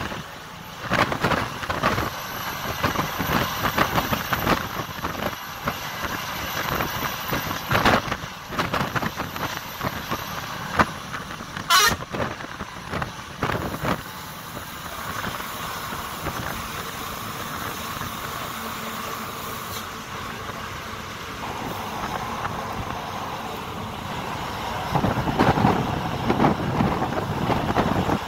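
Coach driving at speed on a highway: engine, tyre and wind noise that swells and dips in gusts, louder near the end.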